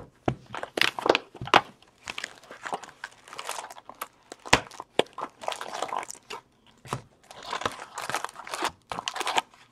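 Cardboard hockey card box being opened and its foil packs crinkling and rustling as they are lifted out, with sharp cardboard snaps and taps throughout.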